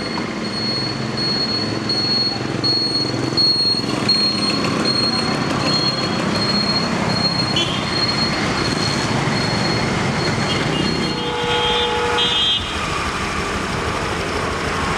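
Road traffic: motorcycles and scooters passing close by, a steady rumbling noise, with a high pulsing tone in the background. About eleven seconds in, a vehicle horn sounds for about a second and a half.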